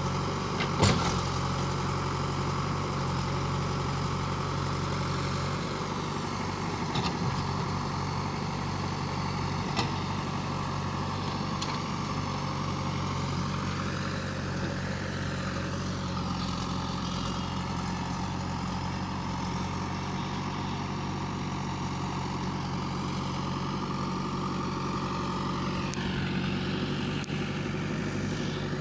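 Diesel engines of a JCB 3DX backhoe loader at work and a Mahindra tractor idling, running steadily. There are a few sharp knocks in the first ten seconds, and the engine note shifts around the middle and again near the end.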